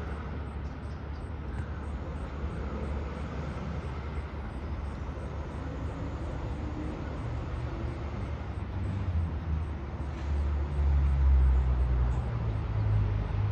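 Low, steady outdoor rumble, with no distinct calls or knocks, swelling louder about ten seconds in.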